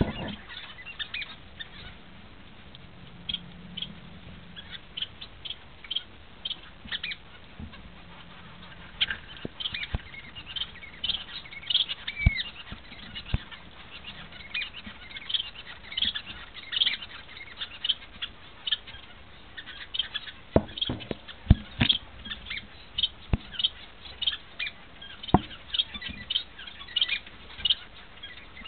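Double-barred finches (owl finches) giving many short, high chirps, more often after the first several seconds, with scattered sharp taps and clicks and the flutter of small wings.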